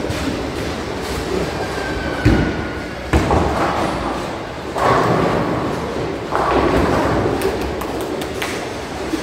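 Bowling alley noise: heavy bowling balls thudding onto the lanes and rolling with a low rumble, with the loudest thud about two seconds in, and bursts of pins clattering about five and six and a half seconds in.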